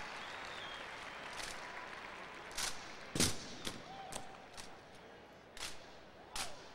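Ceremonial drill rifles clacking as they are spun, caught and snapped into gloved hands: a string of sharp, separate strikes at uneven intervals, the loudest a little past three seconds in, over a fading crowd murmur.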